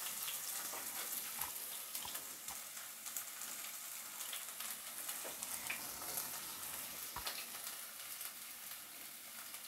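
Chopped red onions sizzling in hot oil in a stainless steel pan: a steady, fairly quiet hiss with scattered small crackles.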